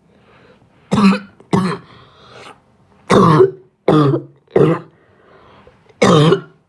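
A person coughing in bouts: two coughs, a breath drawn in, three quick coughs, then one more cough near the end.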